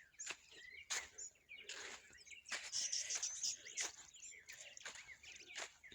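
Small birds chirping in short, scattered calls, with irregular short scuffs and rustles of footsteps through the garden.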